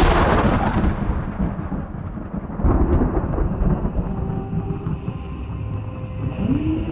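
Thunder-clap sound effect: a sharp crack that fades over about a second into a long rolling rumble, which swells again about three seconds in.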